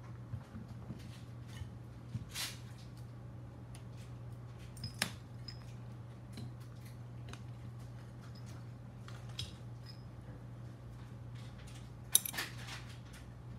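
Small drone parts being handled by hand: scattered light clicks and knocks, one sharp knock about five seconds in and the loudest cluster near the end, over a steady low hum.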